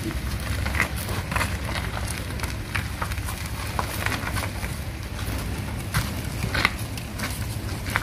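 Steel two-wheeled hand cart loaded with a log, pushed over a dirt yard, giving irregular clicks and knocks over a steady low rumble.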